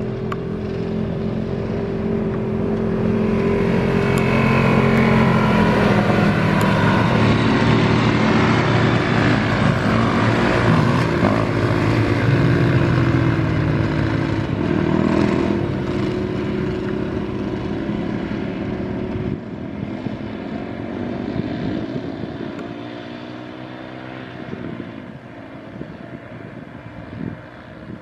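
Several off-road quads racing past on a dirt trail, their engines revving hard. The sound builds to its loudest a few seconds in, then fades away in the second half, the pitch sweeping as the machines pass and move off.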